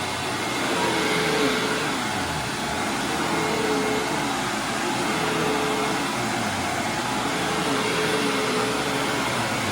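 Hoover WindTunnel Supreme upright vacuum cleaner running on carpet, a steady whir with a hum that rises and falls in pitch about once a second.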